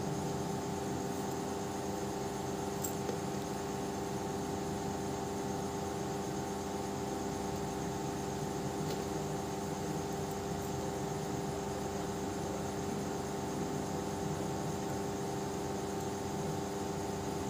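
A steady mechanical hum with a constant drone of several fixed tones, like a motor running.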